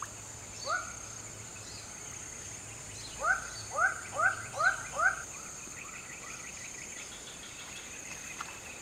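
An animal call, short and sliding upward in pitch, once near the start and then five times in quick succession about halfway through, over a steady high-pitched insect drone.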